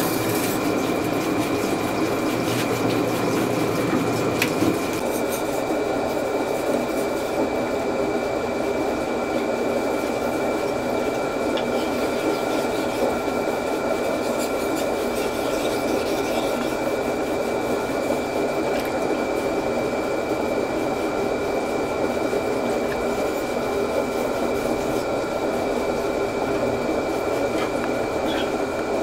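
Large water-fed rotary grinding wheel running with a steady hum and trickling water, a steel Deba knife blade held against it to grind back the broken edge; a lower rumble drops out about five seconds in.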